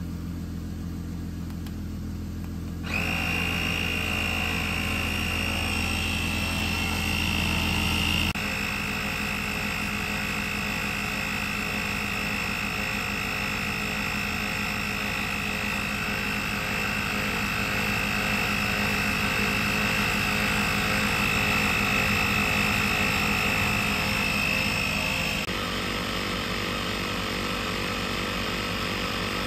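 Portable electric tire inflator's compressor running steadily as it pumps up a car tire from low pressure, a high whine joining about three seconds in. The sound shifts abruptly twice later on.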